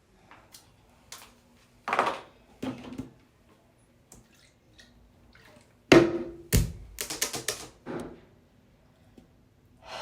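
A series of knocks, clicks and clatters, like objects being handled and set down, with the loudest about six seconds in and a quick run of sharp clicks just after it.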